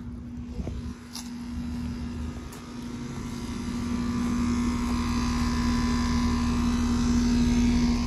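Outdoor air-conditioning condensing unit running, a steady compressor hum under the whoosh of its fan. It grows steadily louder over the last few seconds.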